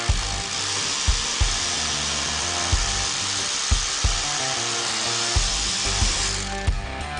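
Bosch GBH 2-24 RE hammer drill running with a steady high noise that stops shortly before the end, over background music with a steady drum beat.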